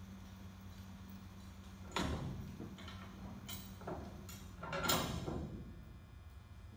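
Knocks and scrapes of trailer hardware being handled during installation. There is a sharp clank about two seconds in, lighter knocks after it, and a longer scrape and clatter around five seconds in, over a steady low hum.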